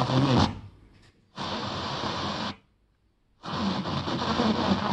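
FM car-radio head unit being tuned step by step: the station audio cuts out, then two blocks of radio static hiss, each about a second long, come in and stop abruptly between muted silences. The second block carries faint programme sound under the hiss.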